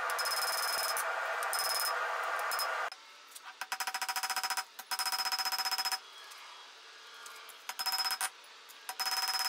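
Hammer blows on red-hot leaf spring steel on an anvil in rapid runs, the anvil ringing, with short lulls between the runs.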